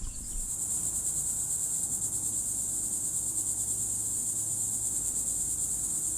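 Steady chorus of insects: a continuous, very high-pitched shrill trill with a fast, even pulse.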